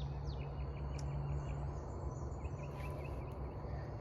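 Outdoor garden ambience: two short runs of quick, high chirps from small birds or insects over a steady low hum.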